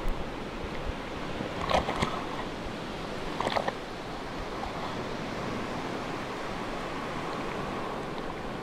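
Sea waves washing steadily, with three short, sharp sounds in the first half.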